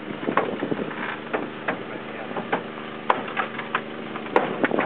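Hydraulic rescue cutter's power unit engine running steadily, with a quick series of sharp cracks and clanks as the cutter's blades are set in the notch and bite into metal; two sharper cracks stand out near the end.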